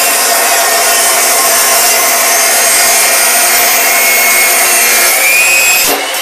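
Saw with a 14-inch Diablo carbide-tipped metal-cutting blade, spun at about 3800 rpm, well above its 1800 rpm rating, cutting through metal stock. It makes a loud, steady, harsh grinding with a ringing undertone. About five seconds in, the blade's whine rises in pitch as it breaks through, and the cutting noise drops off near the end.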